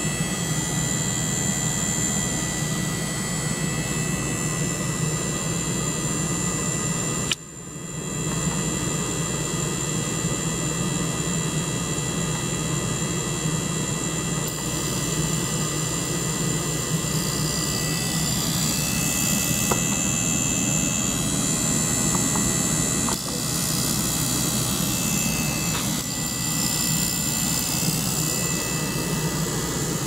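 A small liquid-circulation pump and a small ultrasonic cleaner running together: a steady mechanical hum with faint steady high tones. It drops out briefly about seven seconds in and then comes back.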